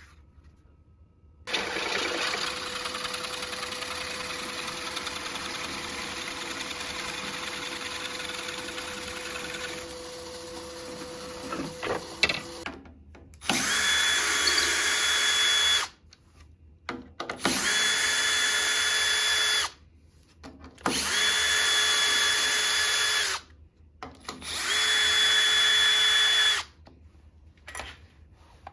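A steady mechanical running sound with a low hum for about eleven seconds, then a cordless drill driver spinning in four separate bursts of about two seconds each, backing out four screws from a wooden chuck ring.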